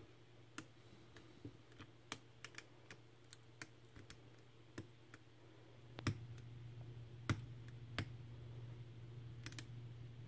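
Small, irregular metallic clicks and taps, about two a second, of a gem pick and tension wrench working the pins inside a Medeco biaxial padlock, over a faint low hum.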